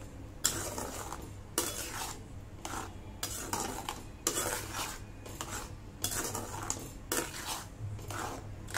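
A spatula stirring a thick, wet gravy in a metal pot, scraping the pot's sides and bottom in strokes about once a second.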